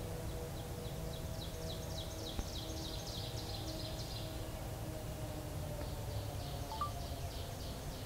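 A songbird singing a trill of quickly repeated high notes for about four seconds, then a second, fainter trill near the end, over a low steady background rumble.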